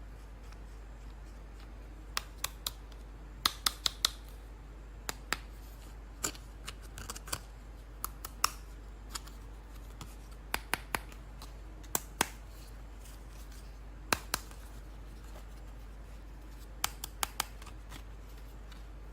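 Scissors snipping, short sharp cuts in quick clusters of two to four with pauses between, as toy packaging is cut open.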